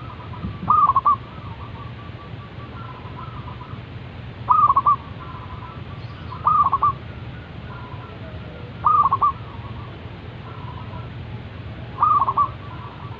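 Zebra dove (perkutut) singing: five loud calls, each a quick run of a few notes dropping in pitch, a few seconds apart, with fainter dove calls between them.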